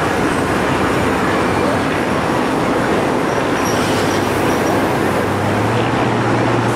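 Diesel locomotives passing close by, a steady loud rumble of engines and rail noise, with a low engine drone growing stronger about five seconds in.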